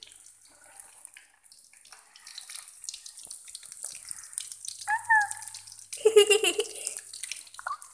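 Nuggets deep-frying in hot oil in a wok: a steady sizzling hiss, with a metal spatula stirring them. A brief, louder harsh sound about six seconds in, after a short gliding squeak a second earlier.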